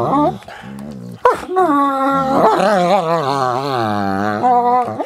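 German Shepherds play-wrestling, one giving long, wavering growls and whines that rise and fall in pitch. After a short growl at the start and a quieter second, one long drawn-out vocalization runs for over three seconds.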